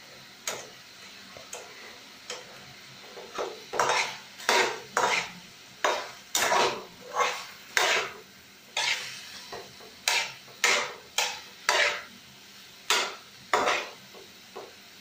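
Steel ladle scraping and clanking against a metal kadai as chopped potato, tomato, onion and carrot are stir-fried. A few scattered strokes at first, then about two strokes a second.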